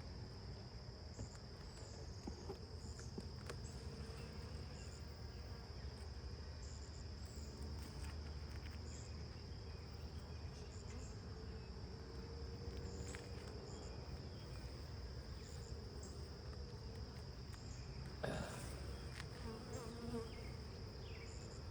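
Honeybees buzzing around an open hive during an inspection: a steady, low hum of many bees. There is a thin steady high tone throughout, and a brief louder noise about 18 seconds in.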